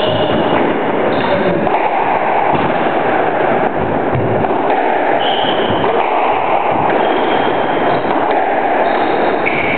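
Squash rally on a wooden court: a squash ball struck by rackets and hitting the walls in irregular knocks every second or two, with brief high squeaks of court shoes on the wooden floor, over a steady loud rushing noise.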